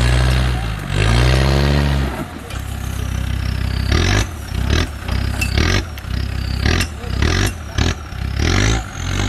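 Land Rover Discovery TD5's five-cylinder turbodiesel engine revving under load as the truck crawls through a deep rut: a long pull in the first couple of seconds, then a string of short throttle blips from about four seconds in.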